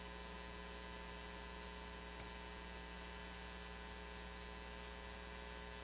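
Steady low electrical hum with faint hiss, unchanging throughout: mains hum from the sound system with no other event.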